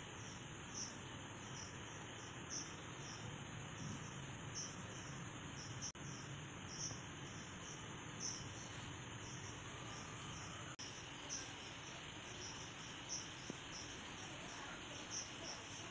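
A cricket chirping: short, high-pitched chirps repeating evenly over a faint steady hiss.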